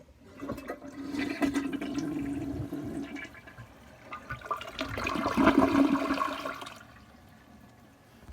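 House toilet flushing: a click at the start, then rushing water that eases about three seconds in, surges again louder, and dies away about seven seconds in.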